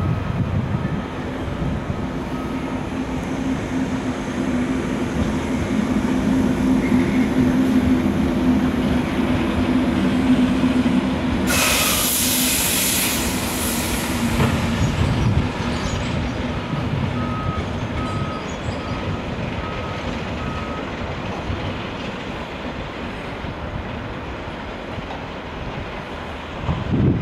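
Belgian electric multiple unit passing and pulling away, its traction motors giving a steady hum and its wheels rumbling on the rails. The sound grows louder, with a short hiss about twelve seconds in, then fades gradually as the train draws away.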